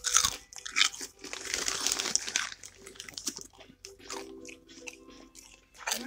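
Dry potato chips and crackers crunching and crackling: a dense run of crackles in the first half, thinning to a few scattered ones.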